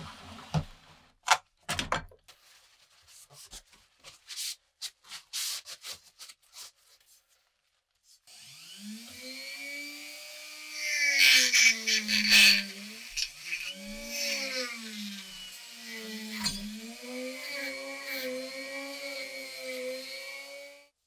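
Wet metal bayonet parts clicking and knocking as they are lifted out of a plastic tub of rust remover. After about eight seconds a flex-shaft rotary tool with a small wire brush starts up. Its motor whine dips and recovers as the brush is pressed against the metal parts, with loud scraping around the middle, and it cuts off at the end.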